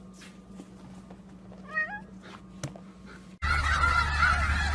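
A cat meows once, briefly, about two seconds in. Near the end there is a sudden cut to loud honking and calling from a flock of poultry.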